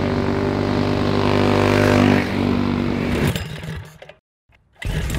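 Small single-cylinder go-kart engines running at a steady speed as two off-road go-karts drive along a dirt trail. The sound fades away about three to four seconds in, followed by a moment of silence.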